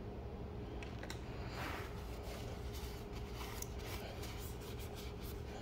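Paper tissue rustling and rubbing as it wipes a handheld refractometer, with small handling clicks, the scratchy rustles coming thicker in the second half. A faint steady hum runs underneath.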